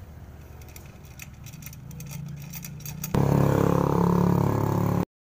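A Honda Scoopy FI scooter's single-cylinder engine runs with its rear wheel spinning on the stand, with light rattling ticks. About three seconds in it revs up sharply and holds much louder, then cuts off abruptly a little after five seconds. Its CVT is fitted with Vario 150 rollers.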